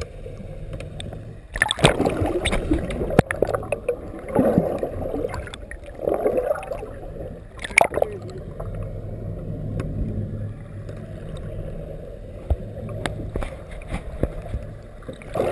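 Muffled water sound heard through an underwater camera housing: gurgling and sloshing with a steady low hum, broken by several louder splashes.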